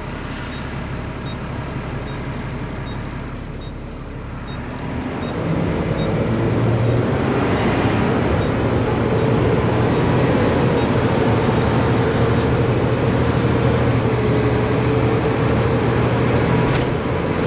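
A Mack garbage truck's diesel engine and road noise heard from inside the cab while driving. It gets louder and works harder from about five seconds in as the truck picks up speed. In the first few seconds there is a faint, regular ticking.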